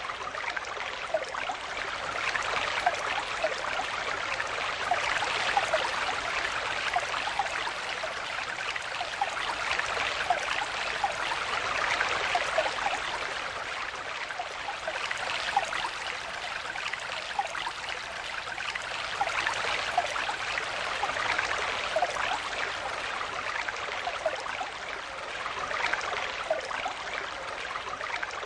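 A shallow stream flowing over rocks: a steady rush of water with many small bubbling plinks, swelling and easing slightly.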